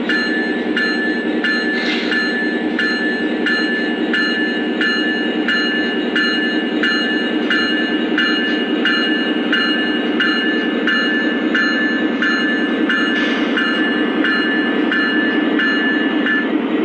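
Lionel O-gauge Union Pacific SD70ACe 'George Bush 41' model diesel locomotive running, its onboard sound system playing a steady diesel engine rumble and a locomotive bell ringing about three times every two seconds. The bell stops near the end.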